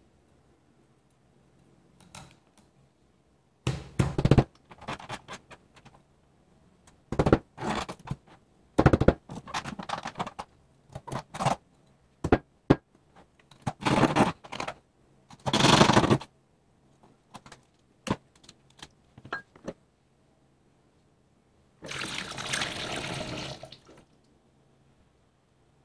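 Knife chopping into the husk of a green coconut on a plastic cutting board: a series of sharp chops and thuds. Near the end, coconut water is poured from the opened coconut through a plastic funnel into a plastic fermenter for about two seconds.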